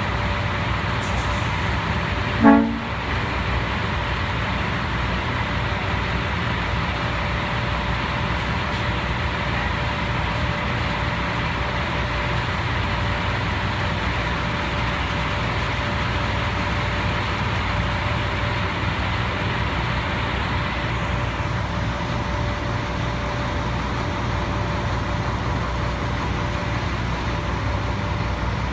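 Concrete mixer truck running steadily with its McNeilus mixer drum turning, a low, even engine drone with faint steady hums in it. About two and a half seconds in, a short horn toot sounds once.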